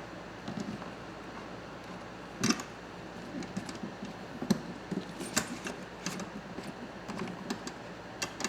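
Scattered light clicks and taps of small hardware being handled as a mounting screw is refitted through an organizer into a motorcycle saddlebag's mount, with a few sharper knocks.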